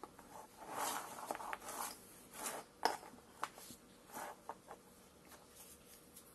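Handling noise: coated work gloves brushing over paper and moving a sensor cable and a hand tool, a string of short swishes and light clicks, the sharpest about three seconds in.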